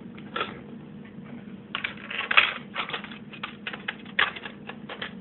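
Plastic hard drive bay cover of a Compaq Presario CQ61 laptop being handled and fitted back onto the case, a run of irregular clicks and rattles that is busiest in the middle.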